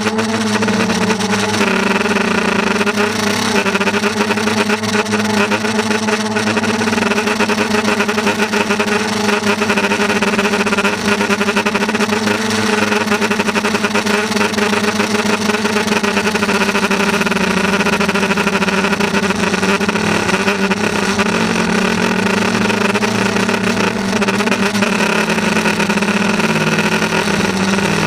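Steady, loud motor drone, one pitched hum with many overtones, heard close to the GoPro, its pitch wavering slightly.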